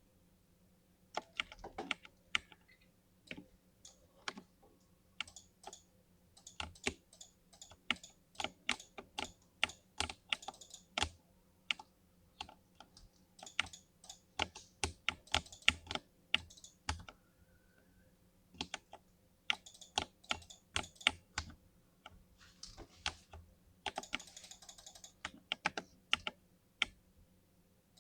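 Typing on a mechanical keyboard with lubed Cherry MX Perfection Smooth switches: quick runs of key presses in bursts, broken by pauses of a second or two, over a faint steady hum.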